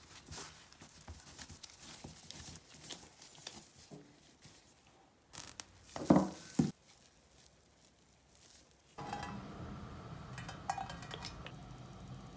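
Rubber-gloved hands kneading crumbly shortcrust dough, with soft crackling and small clicks. About six seconds in comes a loud crinkling and tearing of cling film as the dough ball is wrapped. From about nine seconds, a steady hiss with a few clicks as a pan of olive oil heats on a gas hob.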